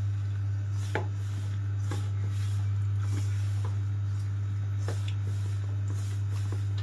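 Hand kneading and rubbing a dry, crumbly naan khatai dough of flour and ghee in a stainless steel bowl, with soft scrapes and light clicks of the fingers against the bowl about once a second. Under it runs a steady low hum, the loudest sound throughout.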